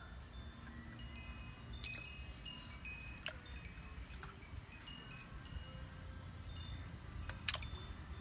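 Wind chimes tinkling irregularly, many short high ringing notes overlapping, with a few louder strikes, over a low steady rumble.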